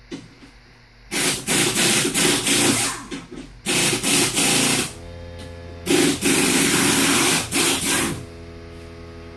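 Pneumatic impact (air) hammer run off an air compressor, fired in three loud rapid-stroke bursts of about two seconds, one second and two seconds. A steady hum, typical of the compressor motor running, starts about five seconds in and carries on.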